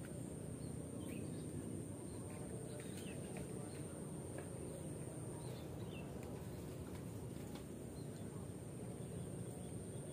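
Outdoor ambience: a steady low background rumble with a few faint bird chirps scattered through it and a thin, steady high-pitched tone that drops away about halfway through.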